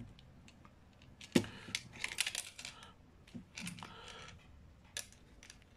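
Irregular small clicks and rustling of hands working a rubber squid skirt over a metal jig and its hooks, with a sharper click about a second and a half in and another near the end.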